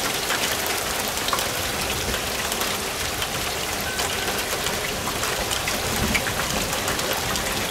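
Steady downpour of rain falling on the driveway and car, with a few light clicks.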